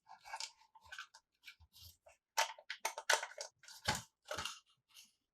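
Plastic toys and packaging being handled: irregular crinkles, clicks and taps, with a heavier knock about four seconds in.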